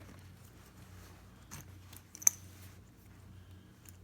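Leather strap being undone on a hard-sided case, with faint handling and one sharp click a little over two seconds in, over a low steady hum.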